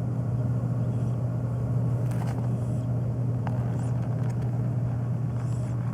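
Steady low hum, a motor-like drone with no meowing, with a couple of faint ticks about two and three and a half seconds in.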